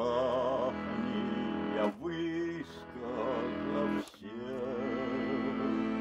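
A man singing with vibrato to his own button accordion (bayan) accompaniment, the accordion holding sustained chords under the voice. The music breaks off briefly about two seconds in and again about four seconds in.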